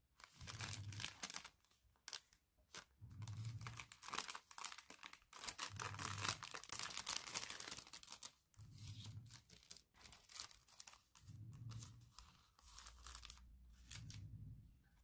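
Hands handling packaging: a clear cellophane sleeve crinkling and rustling in irregular bursts as a paper card is slid out, and paper cards and a folded cotton bag being handled. The crinkling is busiest around the middle.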